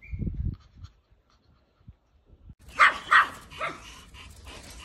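Small Pomeranian dogs yapping: three sharp, high barks in quick succession about three seconds in, with a brief low rumble at the very start.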